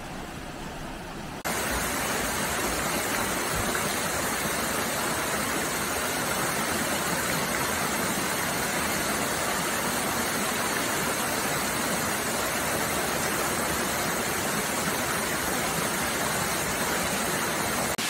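Rushing water of a cascading stream and waterfall, a steady, even rush of falling water. About a second and a half in it jumps suddenly louder to a fuller roar.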